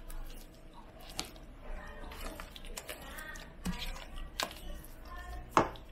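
Silicone spatula stirring and folding thick mashed red kidney bean paste in a stainless steel pot, with a few light, scattered clicks of the spatula against the pot.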